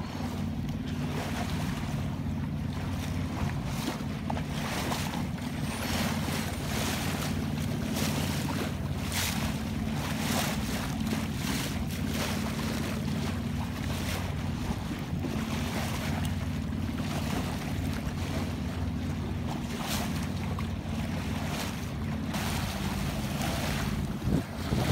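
Water rushing and splashing along a sailboat's hull, with wind buffeting the microphone in gusts, over the steady hum of the boat's inboard engine.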